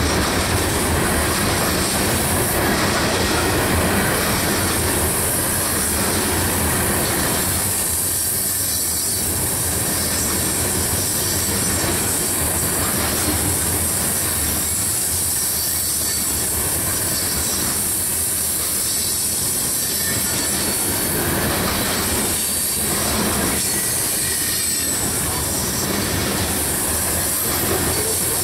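Loaded-train coal cars rolling steadily past on a curve: steel wheels rumbling and clattering on the rail, with a steady high squeal from the wheel flanges grinding against the curved rail.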